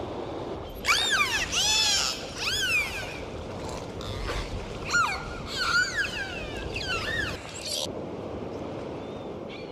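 Several common dolphins whistling underwater: many overlapping whistles that rise and fall in pitch, starting about a second in and stopping a couple of seconds before the end, over a steady water hiss.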